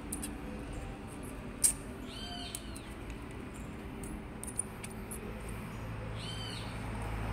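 Light metallic clicks as the pistons of a Bobcat 226B hydraulic piston pump are fitted into the cylinder barrel by hand, the sharpest about a second and a half in. Short high-pitched chirps sound twice, and a low hum grows near the end.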